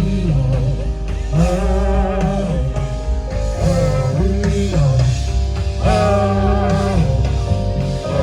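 Live band music: electric guitar and drums playing a steady groove, with no words sung.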